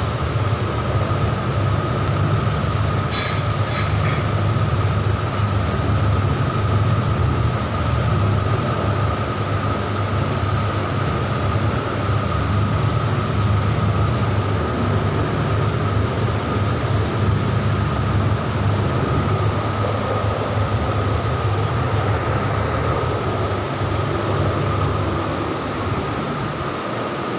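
Steady low rumble and rushing air noise with a constant high whine: a ceiling fan running, its airflow buffeting the phone's microphone.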